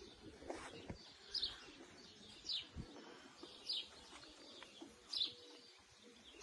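A small bird chirping: a short, high note that falls in pitch, repeated about five times at roughly one-second intervals.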